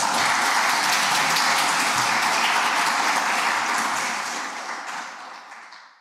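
Audience applauding, dense clapping that holds steady and then fades away over the last couple of seconds.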